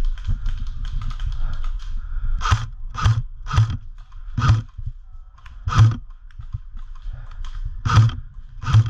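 Airsoft rifle fired in single shots: seven sharp reports at uneven intervals, from about two and a half seconds in. Before them come light rustling and small clicks.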